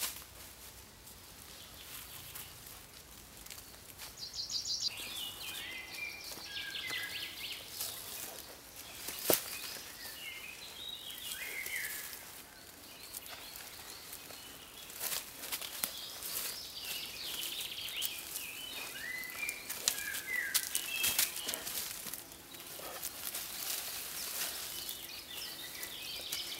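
Songbirds singing in short, quick phrases, over the rustle and crackle of dry leaf litter and moss clumps being handled. A single sharp crack stands out about nine seconds in.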